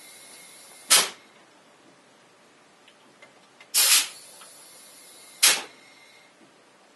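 Short hisses of compressed air as a PEX water line is pressurized for an air leak test to about 50 PSI: one about a second in, a doubled hiss near four seconds, and another at five and a half seconds, each cutting in suddenly and fading fast.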